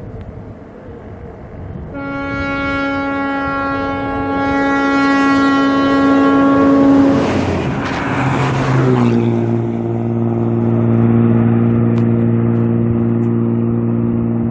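Hino bus air horn blowing one long steady note for about five seconds. A rush of noise follows, then a lower steady drone from the bus.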